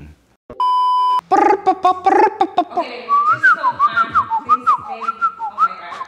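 A steady electronic beep tone, loud and flat, lasting under a second about half a second in. Then quick high-pitched whistle-like chirps that rise and fall, several a second.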